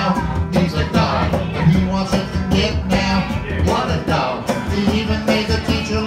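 Live acoustic band playing an upbeat country/rock-and-roll song, with strummed acoustic guitar, upright bass and conga drum keeping a steady beat under sung vocals.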